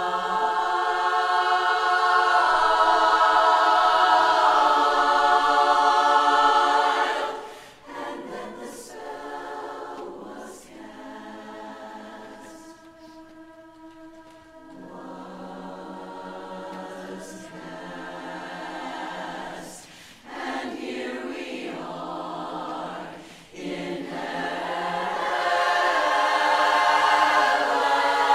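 Women's barbershop chorus singing a cappella in close harmony: loud held chords, dropping to a softer passage about seven seconds in, then swelling loud again near the end.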